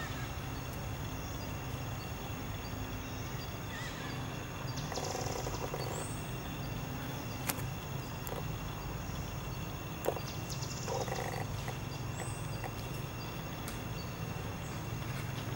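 Outdoor ambience: a steady low rumble under a steady high-pitched drone. A few short rising chirps come through, with two sharp clicks around the middle and brief mid-pitched calls or noises twice.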